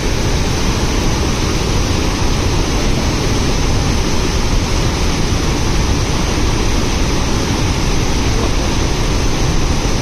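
Hogenakkal Falls on the Kaveri River in full flow: a steady, loud rush of heavy water pouring over the rock ledges into the gorge.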